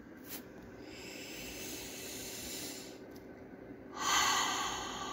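Soft whooshing noise that swells and fades, with a louder whoosh about four seconds in, like a title-card transition sound effect.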